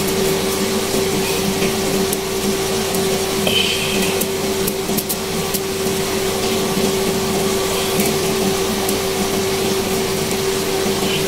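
Pork ribs sizzling in a nonstick wok with freshly added vinegar and soy sauce, with faint scattered ticks of spattering, over a steady motor hum.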